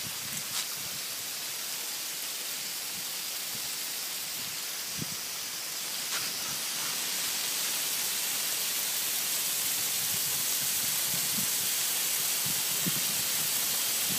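Garden hose spraying water over garden plants: a steady hiss that gets a little louder about halfway through.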